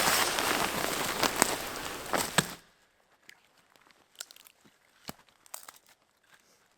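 Dense crunching and crackling with several sharp snaps, from dry wood being broken and handled for kindling. It stops abruptly about two and a half seconds in, leaving near silence with a few faint ticks.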